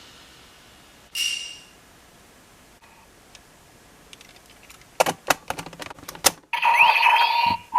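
Sharp plastic clicks of a Kamen Rider Fourze DX Astro Switch toy being worked, then about six and a half seconds in the toy's electronic sound effect starts from its small speaker: a loud beeping tone with sliding pitches.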